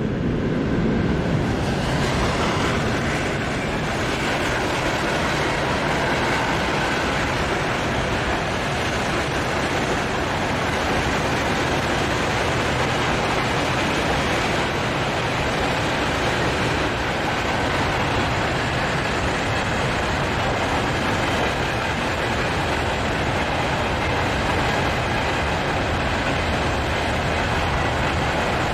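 A long freight train of wagons running past at speed: a steady, loud rush of steel wheels on rail with clickety-clack over the rail joints, filling in over the first couple of seconds.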